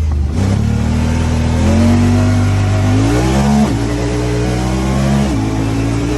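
Honda Talon 1000R's parallel-twin engine accelerating hard, its pitch climbing and then dropping suddenly at an upshift a little past halfway, and again near the end.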